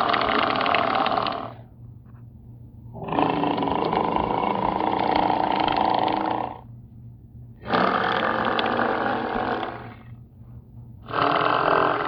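Hedorah kaiju roar sound effects: four rough, noisy monster roars, each about two to three seconds long, with short pauses between them. The first is already sounding at the start and the last cuts off near the end.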